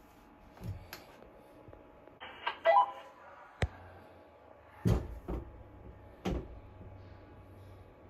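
Several sharp knocks and clunks, with a louder clattering cluster about two and a half seconds in, from a pole-mounted heat detector tester's metal hood being worked against a ceiling heat detector. A faint low hum runs underneath.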